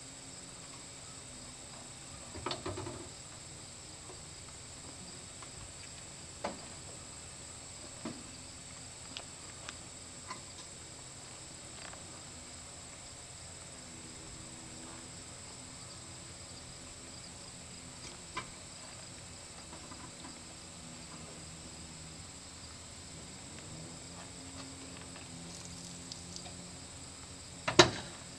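Scattered light knocks and clicks from hands working on a Cessna 172 during its pre-flight inspection, the loudest a sharp knock near the end, over a steady faint high hum.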